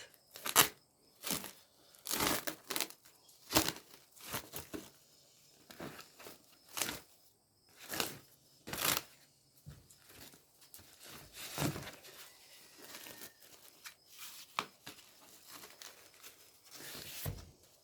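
Pork chop packaging being torn open: irregular rips and crinkling of the wrapping in short bursts.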